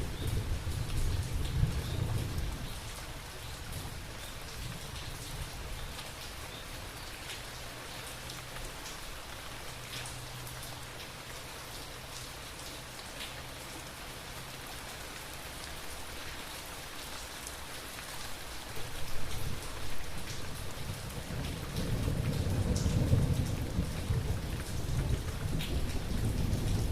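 Steady rain falling on a surface, with rolling thunder rumbling low at the start and building again in the last several seconds.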